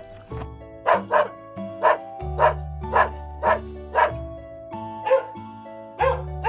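A dog barking, a run of about eight short barks at roughly two a second, over steady background music.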